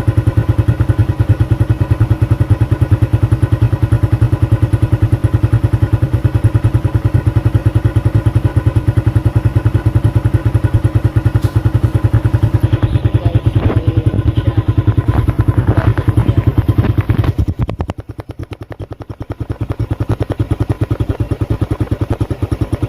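Suzuki Raider 150 carb single-cylinder four-stroke engine idling with even exhaust pulses through its stock pipe, which has had the catalytic converter removed. A little past two-thirds of the way in, the sound drops away sharply for about two seconds, then comes back somewhat quieter.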